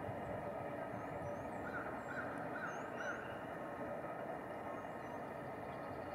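Brown-headed nuthatch calling: four short notes in quick succession, roughly half a second apart, a little before the middle. Faint, very high chirps and a steady background rumble run underneath.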